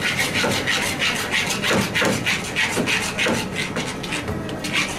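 A utensil scraping and stirring pasta in a stainless steel frying pan, about four quick strokes a second. The carbonara egg and cheese are being kept moving so they do not scramble.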